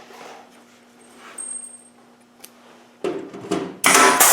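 Powered pop-rivet gun setting rivets in sheet-metal panels: a faint steady hum, then a few sharp snaps about three seconds in and a short, loud hissing burst near the end as a rivet is pulled.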